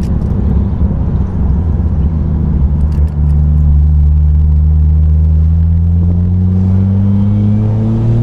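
Ford FG XR6 Turbo's turbocharged 4.0-litre straight-six running through a Varex muffler while driving: a rough low exhaust rumble, then from about three seconds in a steady engine note that rises slowly in pitch as the car pulls in gear.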